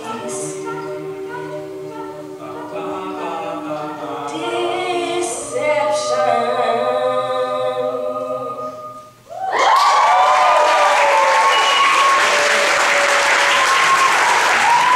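Mixed-voice a cappella choir singing held final chords, the song ending about nine seconds in. The audience then breaks into loud applause with cheers.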